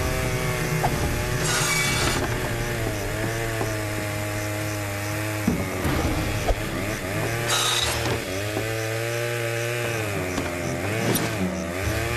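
Cartoon chainsaw engine running steadily, its pitch dipping four times under load, with a few short noisy bursts in between.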